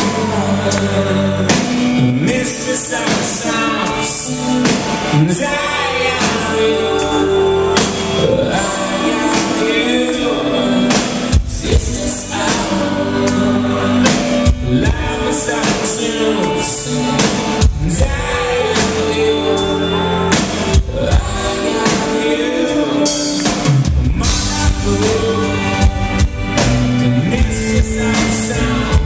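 A rock band playing live, heard from among the audience: a man sings over keyboards, drums, bass and electric guitar.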